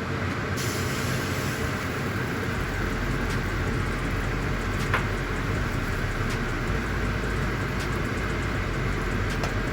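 Steady sizzling in a very hot pan, with a few sharp pops now and then.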